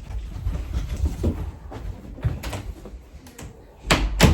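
Scattered light clicks and knocks over a low rumble, with two sharper knocks close together near the end.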